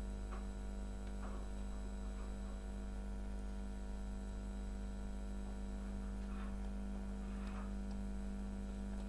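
Steady electrical mains hum in the recording, a constant drone with many overtones, with a few faint short clicks.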